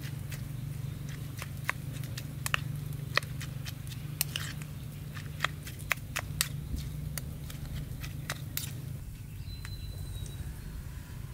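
A metal spoon clinking against a small porcelain bowl as food is stirred, sharp irregular clinks about once a second, over a steady low hum.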